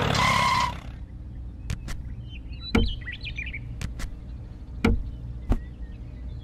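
A loud sound with several held pitches cuts off under a second in. Then come a few light taps and clicks as a small paint jar and paintbrushes are set down on a cardboard toy trolley, with faint chirps about halfway through over a low steady hum.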